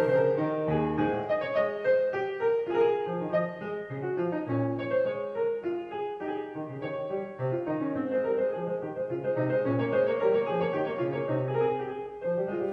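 Background piano music: a busy run of short notes over lower bass notes.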